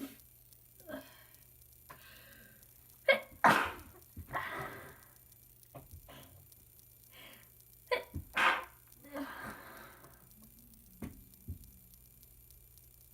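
A person who is sick sneezing twice, messily, about five seconds apart. Each sneeze is a quick voiced intake, then a sharp loud burst, then a breathy trailing exhale, with small sniffs and breaths in between.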